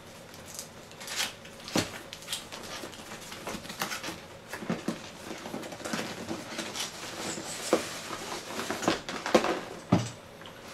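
Cardboard motherboard box being opened and handled: irregular scraping, rustling and small clicks of cardboard, with a few sharper knocks.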